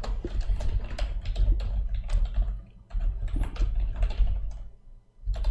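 Fast typing on a computer keyboard, in two runs of clicks with a short pause about three seconds in.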